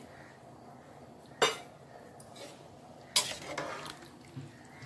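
A steel spoon stirs green peas into biryani gravy in an aluminium pressure cooker. It strikes the pot with a sharp clank about one and a half seconds in and again about three seconds in, with lighter clinks and scrapes after the second.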